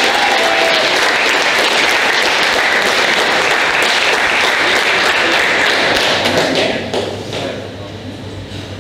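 Audience clapping and applauding in a hall, dying down about seven seconds in.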